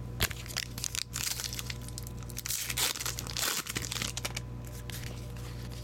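Foil trading-card pack wrappers crinkling and rustling as they are handled, with irregular crackles, a sharp one just after the start and a denser stretch around the middle.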